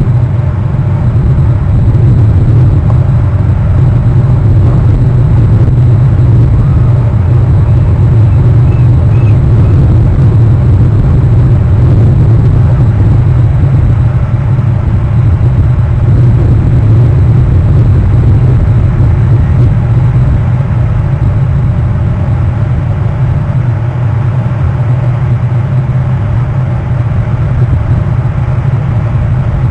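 A steady, loud low rumble with no distinct events.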